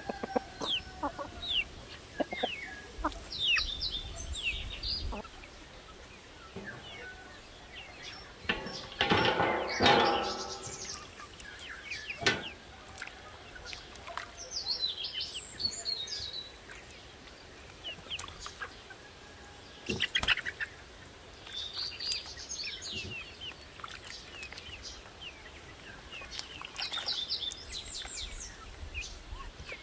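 Chickens and a rooster calling, with one loud, drawn-out call about ten seconds in, over songbirds chirping in short high trills.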